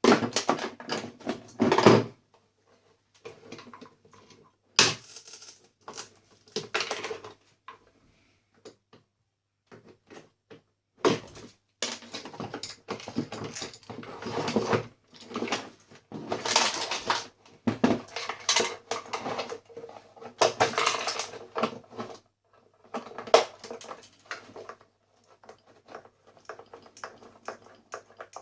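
Irregular clattering, clicks and knocks of a coffee maker's parts being handled and pulled apart by hand while it is stripped for scrap, coming in bunches with short pauses between.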